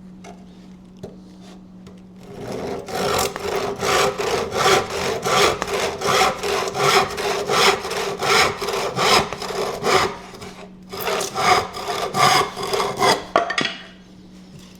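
Handsaw cutting through wooden stakes in steady back-and-forth strokes, about three a second. It starts about two seconds in, pauses briefly near the ten-second mark, then saws on and stops shortly before the end as the cut goes through.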